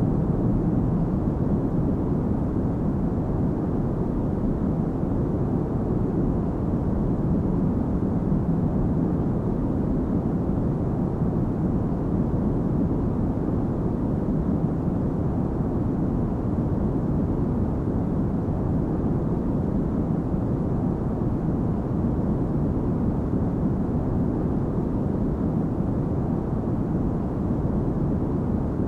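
Steady low rumble of a jet airliner in cruise heard from inside the cabin: engine and airflow noise.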